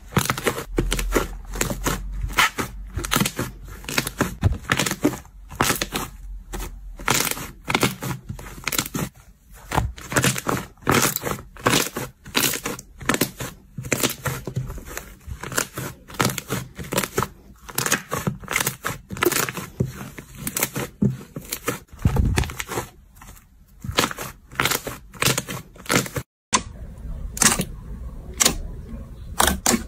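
Slime being squeezed, pressed and stretched by hand, giving a dense, irregular stream of crackling and popping sounds. The sound breaks off briefly near the end and then resumes.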